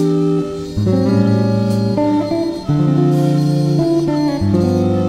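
Background music: plucked guitar playing a melody over bass notes that change every second or so.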